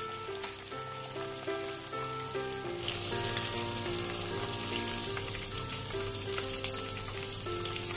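Flour-coated fish sizzling and crackling as it fries in hot oil in a pan, the sizzle growing louder about three seconds in. A melody of background music plays throughout.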